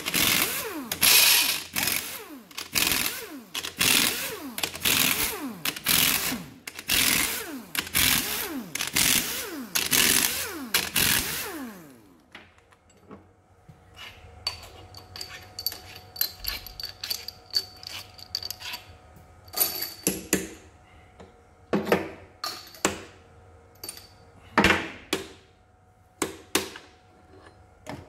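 Pneumatic impact wrench undoing the main bearing cap bolts on a Ford 4.0 L SOHC inline-six block: about a dozen loud short bursts, each falling in pitch as it winds down. After about twelve seconds the gun stops, and metal clinks and a few sharp hammer knocks follow as the main caps are tapped loose.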